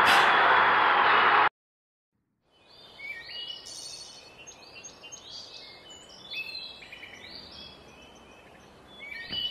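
A loud, even rushing noise that cuts off suddenly about a second and a half in. After a second of silence come birds chirping: many short calls at shifting pitches, some held and some rising.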